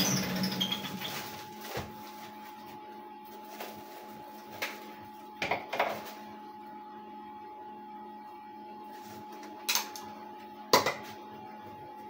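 Cotton candy machine winding down, its loud whirr fading over about the first second, then a steady low hum with a few sharp clicks and knocks.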